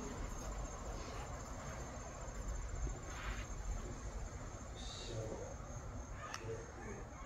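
Insects trilling steadily at a high pitch, over a low rumble of wind on the microphone.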